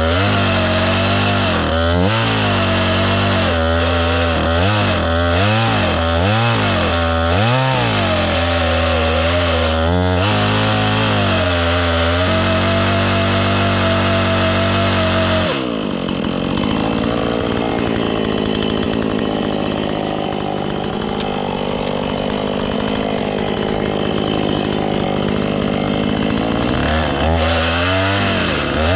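Husqvarna chainsaw running with a dull chain. For the first ten seconds or so the engine revs up and down repeatedly, then it holds at a steady high speed. About halfway through, the clear engine note gives way to a rougher, noisier sound for about ten seconds as it bogs in the cut, and it revs up freely again near the end.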